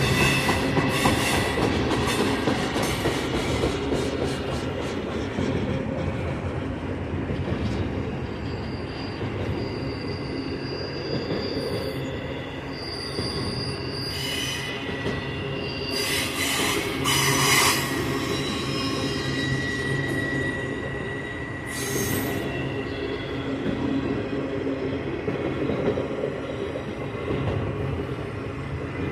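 Double-stack intermodal freight train rolling past: a steady rumble of steel wheels on rail, with rapid clicking over the rail in the first few seconds and high-pitched wheel squeals that come and go, loudest a little past the middle.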